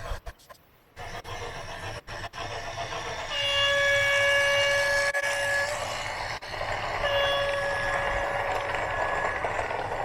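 A horn sounds two long blasts, each about two and a half seconds, over a steady rumble.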